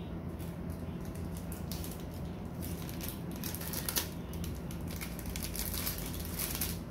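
Clear plastic bag crinkling and rustling as it is handled, in irregular rustles that get busier about halfway through, with one sharp click about four seconds in.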